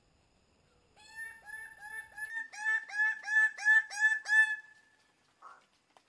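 Male greater bird-of-paradise calling during its plumed display: a rapid series of about a dozen loud, repeated calls that grows louder toward the end.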